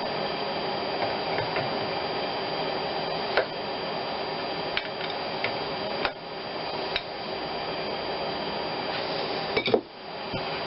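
A few scattered metal clinks and knocks of hand tools working on an engine, over a steady shop hum.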